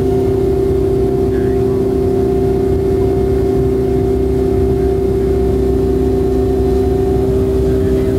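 Cabin noise of a Boeing 757-200 in flight, heard from a window seat beside the wing: a steady rumble with a droning hum from its Pratt & Whitney PW2000 turbofan engines. The hum steps down slightly in pitch about seven seconds in.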